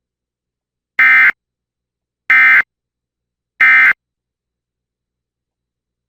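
Emergency Alert System SAME end-of-message data bursts: three short, identical buzzing digital tone bursts about a second and a quarter apart, starting about a second in. They signal the end of the alert.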